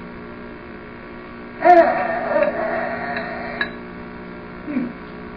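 A baby vocalizing with a high, wavering, cry-like voice for about two seconds, starting near two seconds in, with a short lower sound near the end. A steady electrical hum runs underneath.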